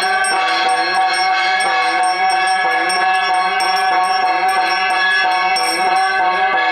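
Handheld brass puja bell rung continuously in a quick, even rhythm, its ringing tones sustained over each stroke, as it accompanies the aarti lamp-waving of a Hindu puja.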